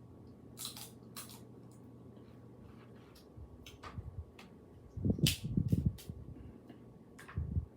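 Close-up eating sounds: wet chewing, lip smacks and sucking, with a cluster of heavier chewing noise about five seconds in and another near the end.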